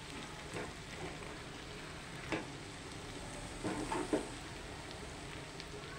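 Beetroot stir-fry sizzling softly in a non-stick pan, with a few short scrapes and knocks of a steel spatula stirring it, about two seconds in and again around four seconds in.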